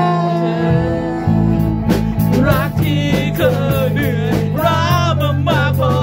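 Live band performance: a male voice sings, holding one long note at the start and then going into shorter phrases, over electric guitar, bass and a drum kit whose cymbals and drums come in about two seconds in.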